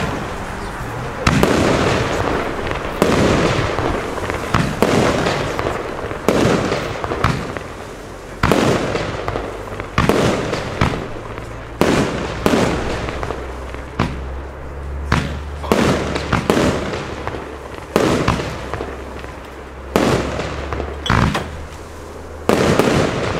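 Consumer firework battery (cake) firing a rapid series of shots, about one and a half a second, each a sharp bang that trails off.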